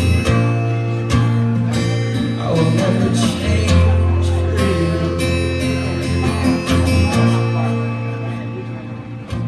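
Live band music: guitar chords over bass and drums, getting quieter toward the end.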